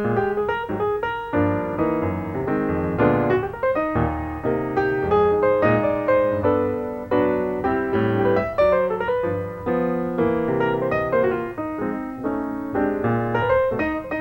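Piano music playing a brisk run of many quick notes and chords.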